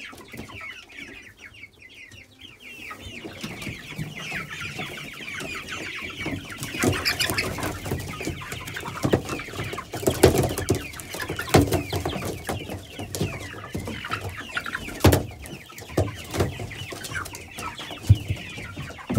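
A flock of young chickens, white meat-bird chicks among them, cheeping constantly in many overlapping high peeps that swell about three seconds in, with a few sharp knocks from about ten seconds on.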